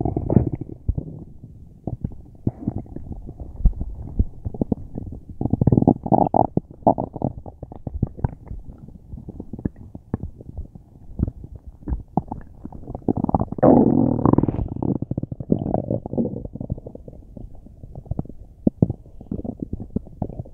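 A person's stomach rumbling and gurgling: a continuous run of crackly gurgles, with louder surges of rumbling about six seconds in and again about thirteen to fifteen seconds in.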